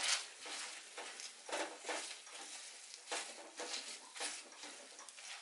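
Potato masher pressing into soft cooked amla (Indian gooseberry), ginger and green chillies in a steel kadai: soft, wet mashing strokes, irregular, about one or two a second.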